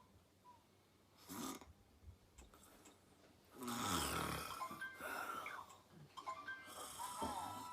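A sleeping woman snoring: a short snore about a second and a half in, then a louder, longer snore about three and a half seconds in, followed by thin whistling tones that slide up and down.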